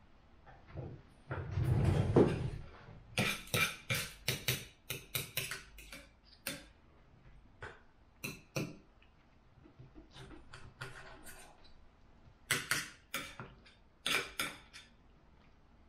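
A fork clinking and scraping against a dinner plate in clusters of short sharp taps while eating. About a second and a half in there is a longer, louder rush of noise.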